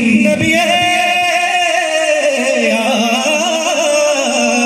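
Daf muttu song over a PA: a singer holds one long, wavering note, with little drumming under it.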